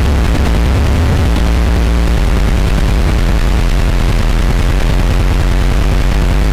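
Loud electronic noise music: a dense static-like hiss over a heavy low drone, which drops lower about a second in.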